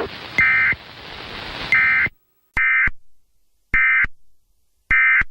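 Emergency Alert System SAME digital data tones: five short, harsh, warbling electronic bursts about a second apart. They are the end-of-message code that closes an EAS test. A faint hiss under the first two bursts cuts off about two seconds in.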